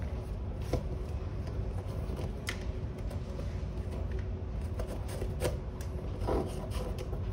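Hands handling leather oxford shoes and loosening their laces through the eyelets: soft rubbing with a few light clicks, over a steady low hum.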